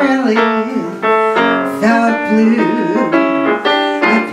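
Woman singing into a microphone with live piano accompaniment. Her sung notes are held and slide in pitch over the piano chords.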